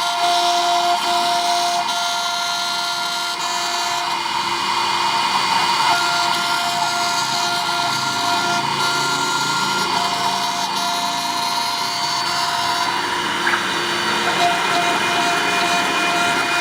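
Small CNC router milling acrylic: the spindle runs steadily with a high whine while the bit cuts the plastic, and pitched tones come and go every second or so as the machine moves.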